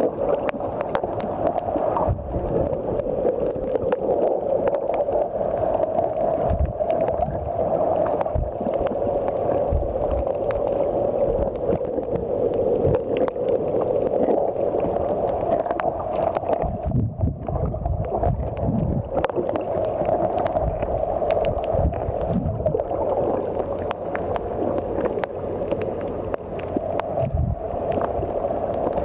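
Muffled underwater water noise picked up by a submerged camera: a steady rushing and gurgling with scattered low thumps, heavier about two-thirds of the way through.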